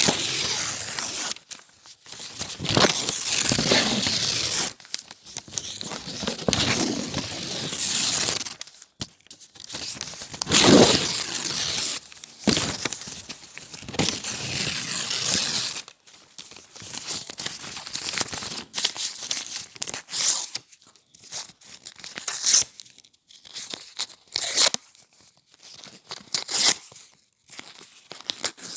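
A sheet of paper being torn, rip after rip: long tears of a second or more through the first half, then shorter, sparser rips and crinkles.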